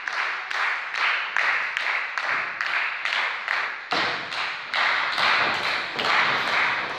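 Small crowd clapping in steady unison, about two and a half claps a second.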